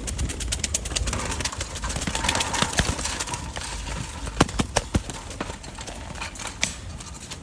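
Rapid, irregular tapping and clicking that thins out into a few sharper knocks about four to five seconds in.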